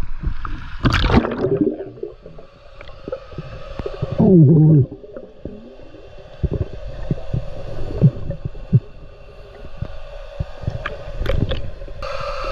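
Action camera going under pond water with a splash about a second in, then muffled underwater gurgling and scattered knocks as a diver handles submerged fish-habitat structures. A brief low moan that falls in pitch comes around four seconds in, and a steady low hum starts near the end.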